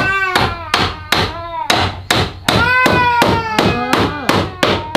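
Hammer striking wooden planks in a quick, irregular run of about three or four blows a second, with a young child crying between and over the blows.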